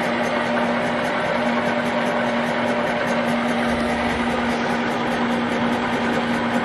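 Motenergy electric motor driving an International 300 Utility tractor's transmission in gear and spinning a wheel at a steady speed. It makes a steady whine with a hum of gear and drivetrain noise.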